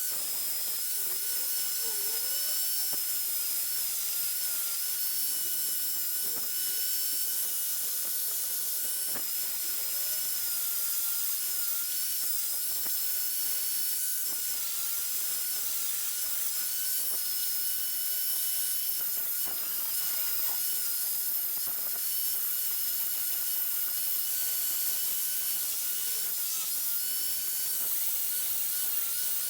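Small high-speed power tool running steadily with a high whine, its pitch dipping slightly now and then as it works metal.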